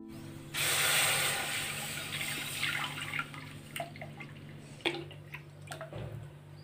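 Thick mango pulp poured from a steel bowl into an iron kadai: a sudden splash about half a second in, then a settling pour that trails off into gurgles and small drips.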